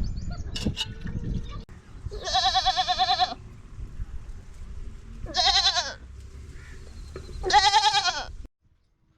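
A goat bleating three times, each call a long, quavering bleat.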